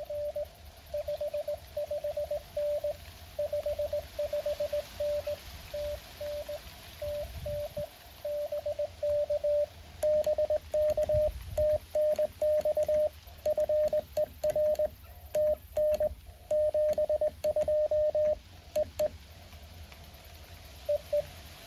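Morse code (CW) tones at one steady pitch from a Mountain Topper 4B QRP transceiver, keyed on and off in dots and dashes. About halfway in, the code gets louder, with sharp clicks along with the elements. It stops a couple of seconds before the end, apart from a brief burst near the end.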